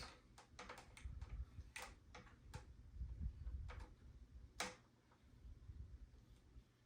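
Irregular sharp clicks from the front-panel knobs and switches of a Sansui QRX-7500 quadraphonic receiver being handled and turned, with a faint low handling rumble. The loudest click comes about four and a half seconds in.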